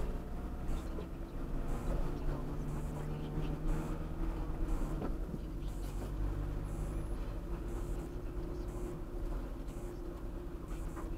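Car engine hum and tyre noise heard from inside the cabin as the car speeds up gently from about 20 to nearly 40 km/h.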